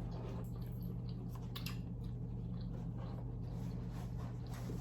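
Close-up mouth sounds of a person chewing a skin-on piece of goat meat: irregular wet clicks and smacks over a steady low hum.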